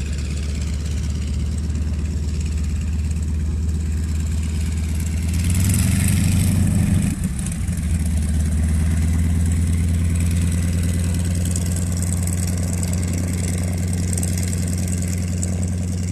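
Light tow plane's piston engine and propeller running with a steady low drone. Around six seconds in a louder rushing swell rises, then drops off suddenly about a second later.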